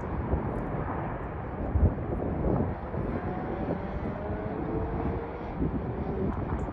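Aeroplane engine noise: a steady rushing roar with a faint whine that slowly falls in pitch, mixed with wind buffeting the microphone.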